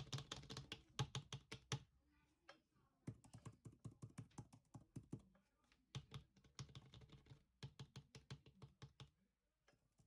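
Typing on the scissor-switch keys of Apple's Magic Keyboard for iPad Pro 11-inch: quiet key clicks in four quick runs, with short pauses between them.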